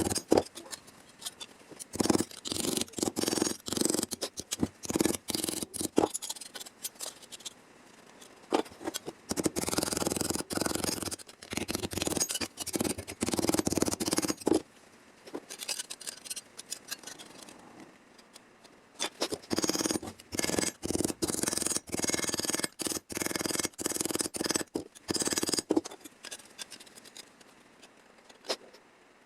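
A hand tool working sheet steel on a car body in runs of short, sharp strokes, with pauses between the runs.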